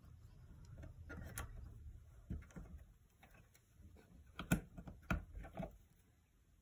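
Small hard plastic parts of a 3D-printed HPA magazine adapter being handled and pushed together by hand: faint scattered clicks and knocks, the sharpest about four and a half seconds in.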